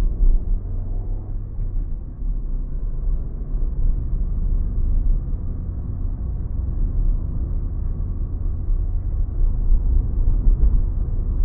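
Steady low rumble of a car's engine and tyres on the road, heard from inside the cabin while driving along.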